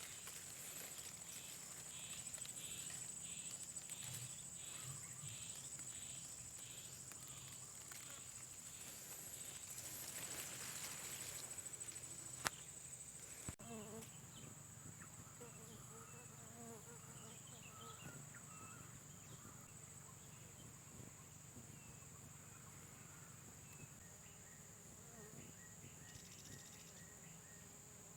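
Faint, steady, high-pitched insect drone, like crickets or cicadas, with a single sharp click about halfway through and faint short chirps in the later part.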